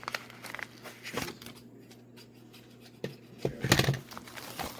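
Mail packaging being handled and opened: scattered short rustles and crinkles, then a louder burst of crinkling and handling noise about three and a half seconds in. A faint steady low hum runs underneath.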